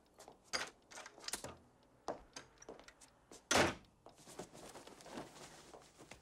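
Light knocks and clicks, then one heavier thump about three and a half seconds in: a car door shutting.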